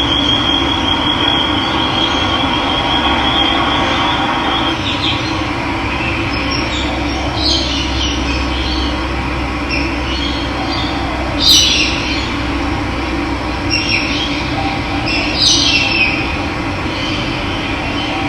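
Steady rush of running water, with birds calling over it: a high, even trill for the first few seconds, then short, bright, falling chirps scattered through the rest.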